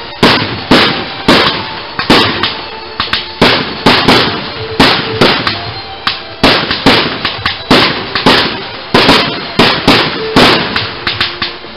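Aerial fireworks going off in rapid succession, about two sharp bangs a second, each with a short decaying tail, as shells rise and burst.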